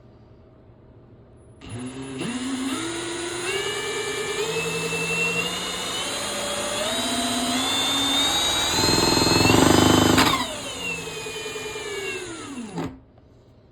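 Electric drill spinning the Sportsman 1000 generator's alternator: the whine climbs in pitch in steps as the drill speeds up, gets loudest near the top speed, then the trigger is let go and it winds down with falling pitch over a couple of seconds.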